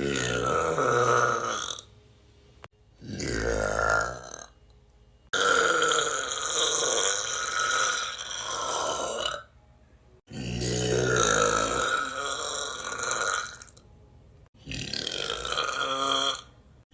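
A person burping loudly five times in a row. The burps are long and drawn out, about two to four seconds each, with short pauses between them.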